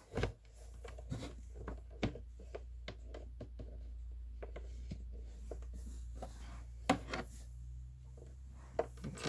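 Handling noise of cables and amp gear being wrapped up and packed: scattered clicks, knocks and rubbing, with a sharper knock about seven seconds in, over a steady low hum.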